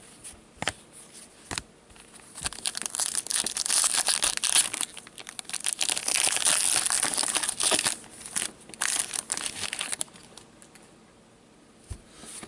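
Foil wrapper of a 2014-15 Upper Deck Masterpieces hockey card pack being torn open and crinkled in gloved hands: a few light ticks at first, then several seconds of dense crinkling that dies away about ten seconds in.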